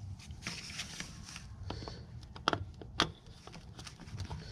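Gloved hand handling a plastic air filter restriction gauge at its fitting: light scuffs and rustles, with two sharp clicks about halfway through, over a low steady hum.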